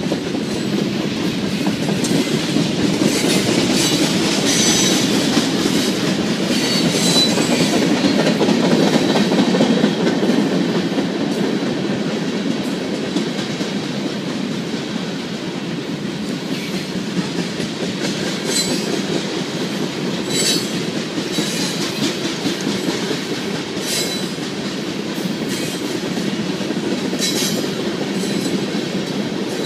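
Union Pacific freight cars, tank cars and covered hoppers, rolling past with a steady rumble of steel wheels on rail and a clickety-clack over the rail joints. Short high-pitched wheel squeals come through now and then.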